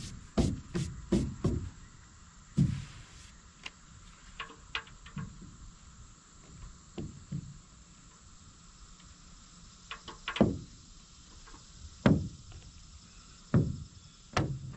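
A hand sweeping back and forth over a fiberglass boat hull, feeling for high and low spots in the faired chine: a quick run of strokes in the first second and a half. Then scattered light knocks and taps as a sanding longboard is handled against the hull.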